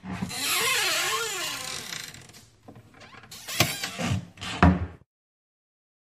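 A door opening: a click, then about two seconds of scraping with a squeak that wavers up and down in pitch. It quietens, and then comes three sharp knocks, as of the door and its latch or frame.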